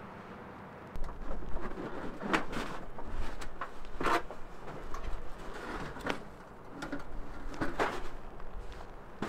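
Sheet-metal tent stove and its stovepipe being handled and fitted together: metal scraping with several sharp clanks, starting about a second in.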